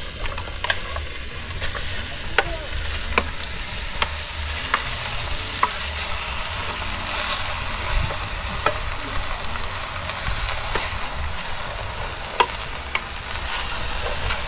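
Wild boar pork frying in its own fat in a metal pot, with no oil added: a steady sizzle with scattered sharp clicks.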